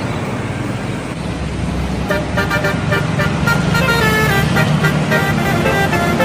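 Bus telolet horn, a multi-tone horn, playing a quick tune of short stepped notes that starts about two seconds in, over the steady hum of the bus engine.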